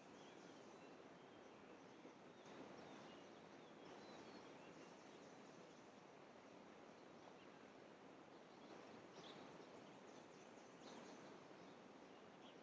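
Near silence: a faint, steady outdoor hiss with a few faint, brief bird chirps.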